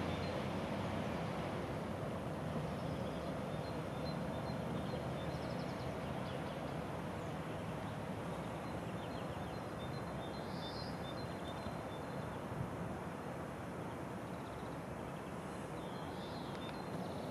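Outdoor ambience: steady background noise with small birds chirping a few times.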